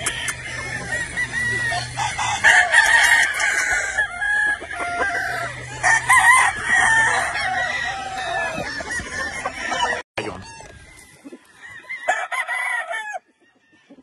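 Several gamefowl roosters crowing, their calls overlapping. The sound cuts off sharply about ten seconds in, and one quieter crow follows shortly after.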